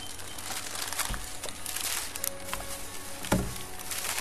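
Paper sandwich wrapper rustling and crinkling as it is handled, with a single knock about three seconds in, over background music.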